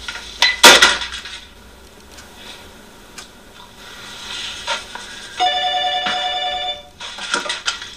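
A home telephone ringing: one electronic ring of several steady tones, about a second and a half long, starting past the middle. Near the start there are a couple of loud, sudden knocks.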